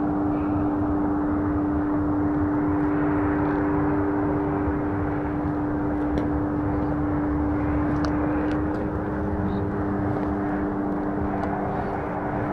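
Steady engine drone: a low hum that holds one pitch throughout, over rumbling noise. A second, lower tone joins about ten seconds in.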